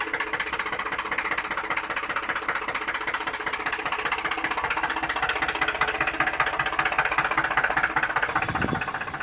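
A small toy tractor motor and its gears running with a fast, rattling buzz, under load as it pushes against the other tractor; it fades out near the end.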